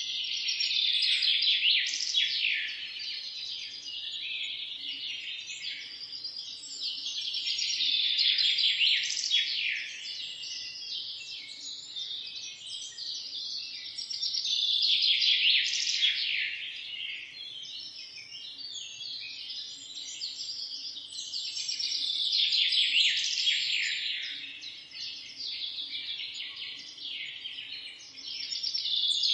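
Many birds chirping and singing at once in a dense chorus of high, rapid chirps and trills. The chorus swells and fades in waves about every seven seconds.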